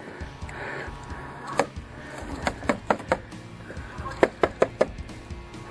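Sharp knocks of airsoft gunfire in short clusters, several coming a fraction of a second apart, over background music.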